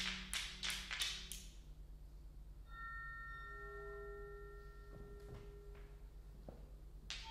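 Contemporary concert music: a rapid run of dry tapping percussive clicks dies away in the first second and a half, then several soft sustained pure tones enter and overlap at different pitches, with a few faint knocks near the end.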